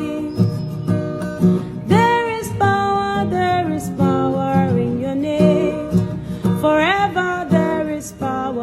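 Acoustic guitar strumming a gospel worship song, with a voice holding long notes that slide up in pitch about two seconds in and again near the end.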